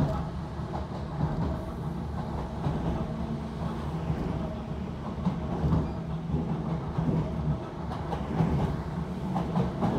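Inside a moving Class 455 electric multiple unit: the steady running rumble of the wheels on the rails, with a low steady hum and occasional faint clicks from the track.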